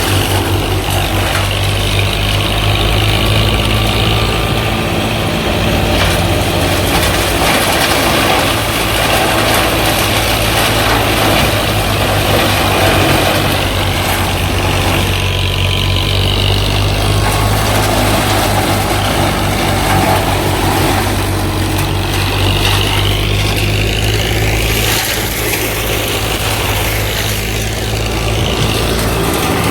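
Heavy diesel engine of a JCB backhoe loader running steadily with a deep, even note while loading mud into a tipper truck. A few high, wavering whines come in about three-quarters of the way through.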